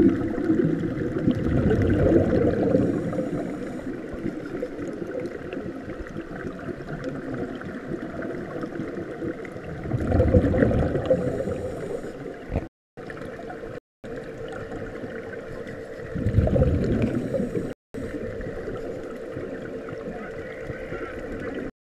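Exhaled air bubbling out of a diver's surface-supplied helmet underwater, heard as gurgling rushes about a second in, about ten seconds in and about sixteen seconds in, each lasting a couple of seconds. Between them a steady underwater rush with a faint hum. The sound cuts out briefly three times in the second half.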